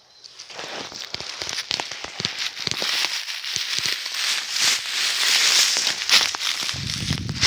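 Footsteps crunching through dry fallen leaves and twigs: a dense crackling that grows louder, with a low rumble joining near the end.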